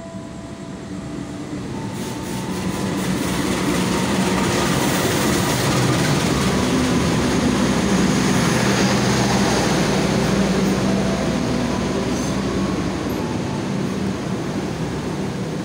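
Diesel locomotive hauling a passenger train passes close along the platform. Its engine drone and the rumble of wheels on rail grow louder as it approaches, peak as the locomotive goes by, then ease slowly as the coaches roll past.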